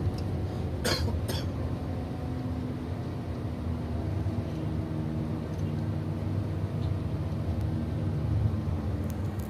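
Steady low drone of an intercity coach bus driving along, its engine and road noise heard from inside the passenger cabin. Two short sharp clatters come about a second in.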